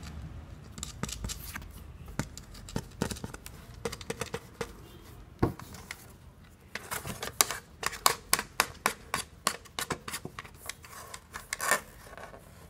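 Quick small clicks and scrapes of a battery-powered quartz clock movement being fitted through a clock-face board and its brass nut turned down onto the shaft by hand. The clicks come in a dense run in the second half.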